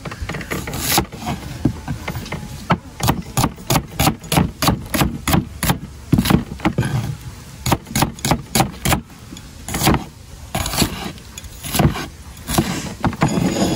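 A large kitchen knife chopping an onion on a wooden cutting board: quick knocks of the blade on the wood, about three a second, in runs with short pauses between them.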